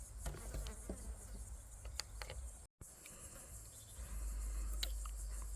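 Faint background insect chirring, likely crickets, with a few light clicks. The sound drops out completely for an instant a little before halfway.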